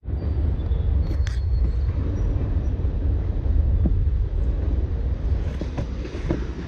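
Wind buffeting the microphone: a strong, uneven low rumble that starts abruptly, with a few faint ticks over it.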